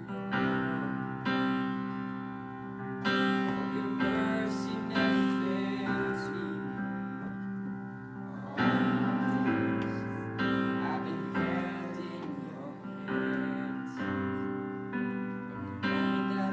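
Piano music: slow, sustained chords struck every second or two.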